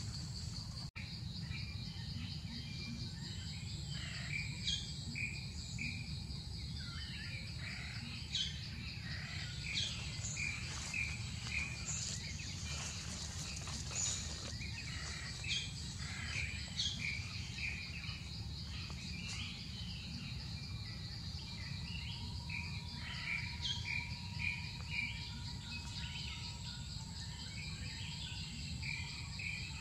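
Forest ambience: a steady, high-pitched insect drone, with birds chirping in short repeated phrases throughout, over a low rumble.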